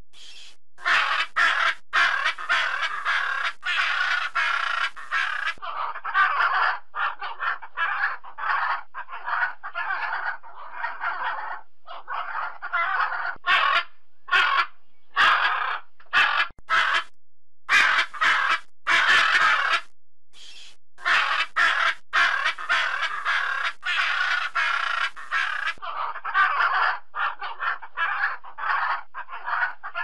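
Macaw squawking over and over in quick succession, with a few short breaks.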